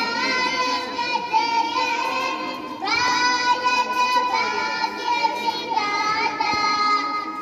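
Children singing a song together in long, held notes, with a new phrase starting about three seconds in.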